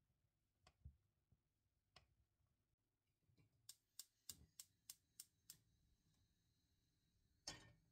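A knife cutting through a bar of soap and knocking on the worktop a couple of times. Then a gas hob's spark igniter clicking rapidly, about seven clicks, until the burner catches with a faint steady hiss; a thump near the end.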